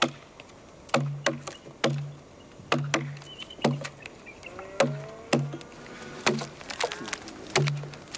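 Hand adzes chopping into the fresh wood of a log being hollowed into a dugout canoe. Two workers strike in an uneven, overlapping rhythm, about a dozen sharp chops, each with a short low thud from the log.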